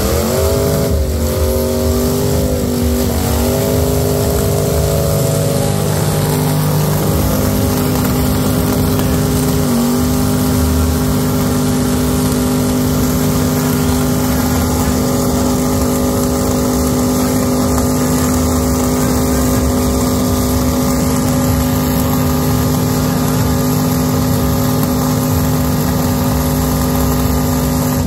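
Third-generation Chevrolet Camaro's engine during a burnout, revved up and held at high, steady revs. The revs dip briefly twice, then drop and climb again at the very end.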